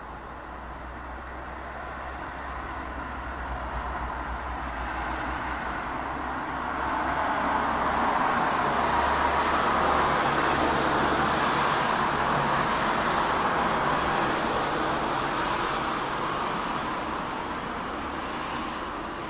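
A vehicle passing by: a broad rushing noise that swells slowly to a peak about halfway through and then fades away.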